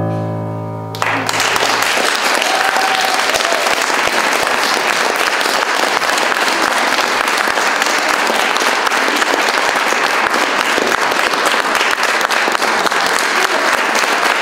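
The last chord of a duet on a Roland electric keyboard fades out, and about a second in an audience breaks into steady applause that carries on to the end.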